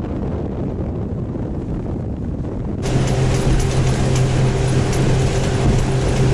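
A motor running steadily under way: at first a muffled low rumble, then about three seconds in an abrupt switch to a louder, brighter engine sound with a steady hum.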